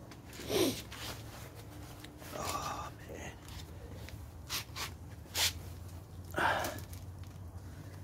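A person's short sniffs and breaths, several spread over the seconds, over a low steady hum.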